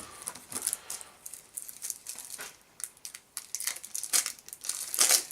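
Plastic wrapping on a stack of game cards crinkling and tearing as it is picked open by hand, in scattered irregular crackles, the loudest a little before the end.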